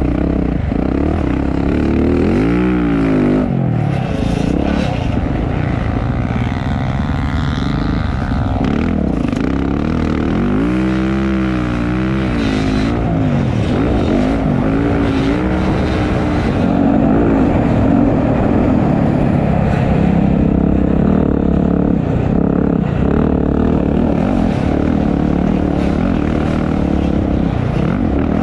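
Several motocross bikes racing, their engines revving up and down. Twice the revs sweep up and fall away loudly as bikes pass close.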